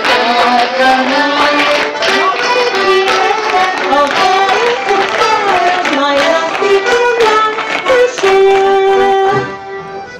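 Live folk band playing a waltz tune on fiddle, accordion and banjo, with short taps of clog steps along with it. The music drops quieter near the end.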